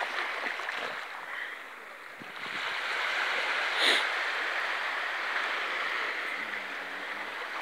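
Sea surf washing ashore: a steady hiss that eases off about two seconds in and swells back up. There is a single short sharp click near the middle.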